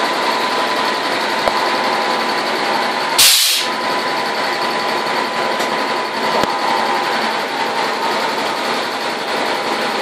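Sawmill machinery at the breast bench running steadily: a continuous mechanical din with a faint steady hum. A brief sharp hiss comes about three seconds in.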